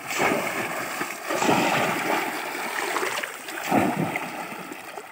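Water splashing and sloshing as bamboo bell-shaped polo fish traps are plunged into and dragged through shallow water, with the loudest splashes about a second and a half in and just before four seconds in.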